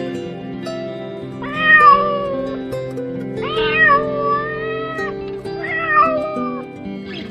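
A cat meowing three times, each call about a second long, over background music of plucked strings.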